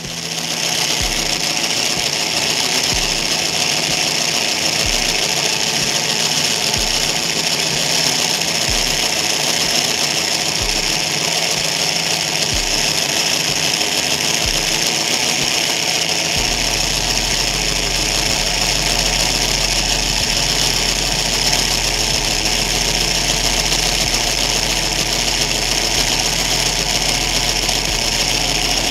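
Small electric motor driving a 3D-printed plastic gearbox and front-axle differential, giving a steady whirring gear noise. A faint low pulse recurs about every two seconds until about halfway through, then gives way to a steady low hum.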